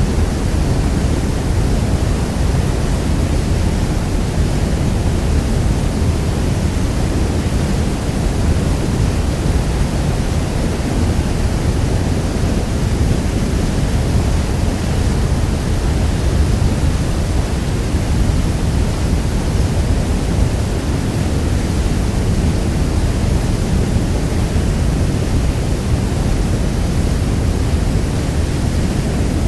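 Niagara Falls: a loud, steady rush of falling water, heaviest in the low rumble, with no change or break.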